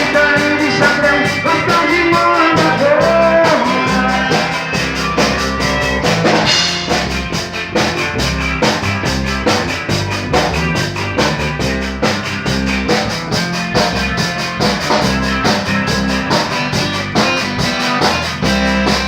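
A band playing an instrumental passage: drum kit keeping a steady beat under bass and guitar, with a gliding lead melody in the first few seconds.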